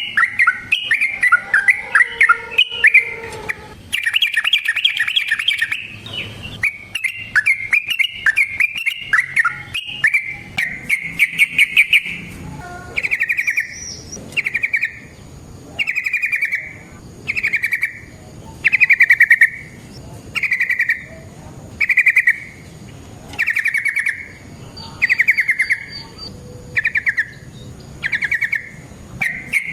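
Yellow-vented bulbul singing: a rapid, bubbly chatter of phrases for the first dozen seconds, then a steady series of short trilled bursts about once a second, each falling slightly in pitch.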